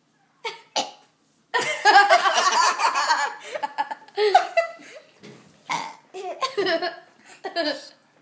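A baby burping again and again, short loud burps coming every second or so, with laughter mixed in.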